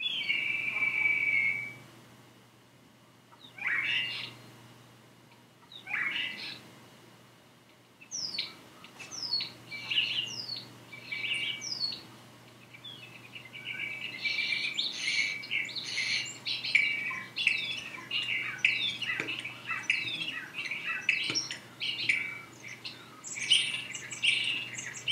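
A flock of starlings calling: a few separate whistled calls at first, most of them falling in pitch, then more and more whistles and chirps that build into a dense, overlapping chorus over the second half.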